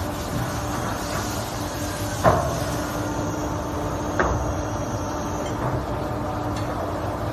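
PVC shoe injection moulding machine running with a steady hum, with two sharp metal clanks from the steel shoe moulds, about two and four seconds in. A faint high hiss runs through the first five seconds.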